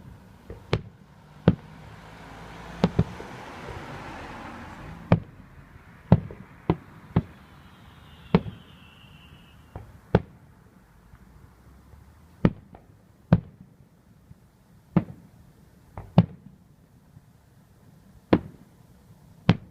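A fireworks display: sharp, echoing bangs of shells bursting overhead at an irregular pace of roughly one a second. There is a spell of hiss between about two and five seconds in, and a faint falling whistle around eight to ten seconds in.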